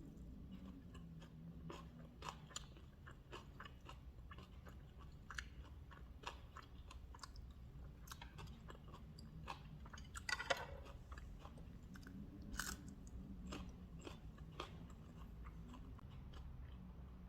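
Close-up eating sounds of a person chewing food, with soft crunching and many small scattered clicks and one louder burst about ten seconds in.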